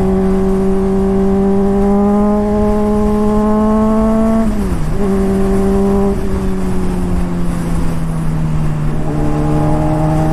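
Honda CBR600RR inline-four running through a Toce aftermarket exhaust while riding, with wind rushing underneath. The engine note climbs slowly, dips sharply and recovers about halfway through, then eases off and lower for a few seconds before picking up again near the end.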